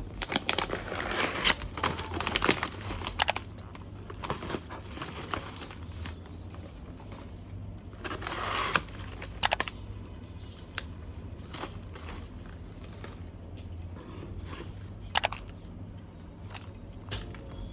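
Objects being handled: irregular rustling, crinkling and scraping with scattered sharp clicks over a low steady hum.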